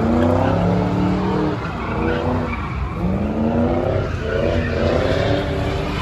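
A car spinning donuts: engine revving and tyres squealing, the pitch rising and falling again and again over a steady low rumble.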